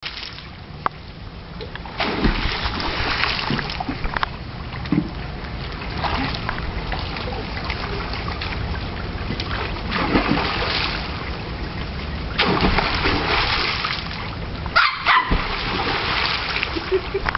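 Pool water splashed hard by hand every few seconds, with a Cavalier King Charles spaniel puppy barking at the spray now and then.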